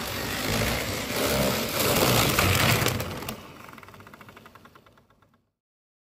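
H0-scale model AVE 103 train running on the layout, its motor and wheels rumbling on the rails. The sound drops away a little after three seconds, fades with a fine rapid ticking, and stops before the end.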